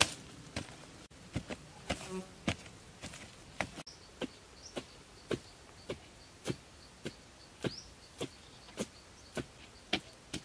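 Repeated strikes of a hand digging tool into soil, evenly paced a little under twice a second. A thin steady high tone joins about four seconds in.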